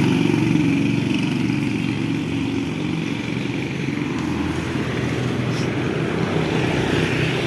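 An engine running steadily, with one brief click about five and a half seconds in.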